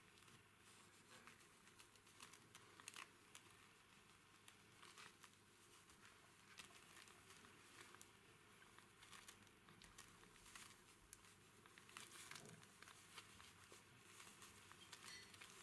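Faint crinkling and rustling with many scattered soft clicks.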